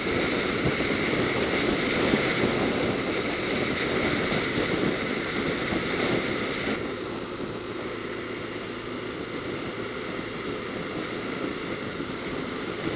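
Motorcycle at highway speed: steady wind rush over the microphone mixed with engine and road noise from a BMW R1200RT touring bike. The noise gets a little duller and quieter about seven seconds in.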